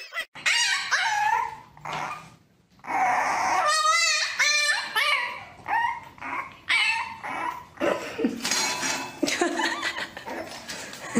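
Dogs whining and yipping in a string of short, high calls with bending pitch, one of them a quick wavering warble about four seconds in. A husky is first, then a puppy after a brief break.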